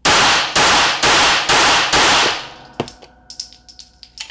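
Glock 19 9mm pistol firing five quick shots about half a second apart, each echoing in a small room. Light metallic clinks and ticks follow, the spent brass casings landing and bouncing.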